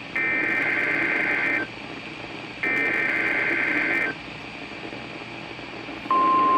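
NOAA Weather Radio SAME header over a hissy radio signal: two buzzy digital data bursts, each about one and a half seconds long and a second apart. Near the end the steady 1050 Hz warning alarm tone starts.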